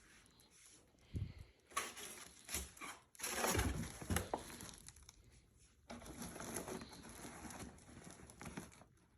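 Packaging being handled: irregular crinkling and rustling, with a few sharp clicks.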